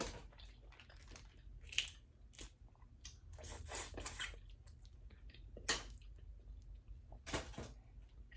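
Eating a seafood boil: shellfish shells cracking and tearing, and chewing. There are a few short crunches, the loudest a little before 6 s and 7.5 s in.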